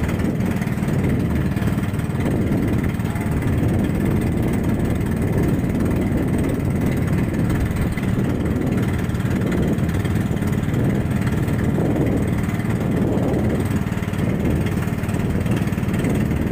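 A motorized outrigger boat's engine running steadily, a low, even drone with no change in pace.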